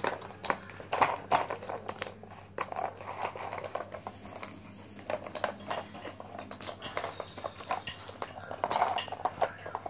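A puppy working a plastic dog puzzle feeder: irregular clicks, taps and knocks of hard plastic as it noses and paws at the pink caps and shoves the toy about.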